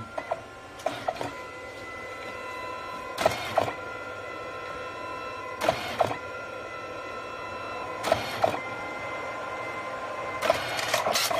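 DNP dye-sublimation photo printer printing a photo: a steady motor whine with pairs of short clunks about every two and a half seconds as the mechanism works the print.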